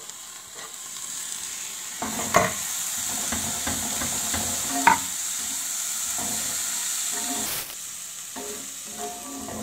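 A spatula stirring and scraping a mix of fried beaten rice, peanuts and chopped cucumber and tomato in a cast-iron pan, rustling steadily from about two seconds in, with a couple of sharp knocks of the spatula against the pan; the stirring eases off near the end.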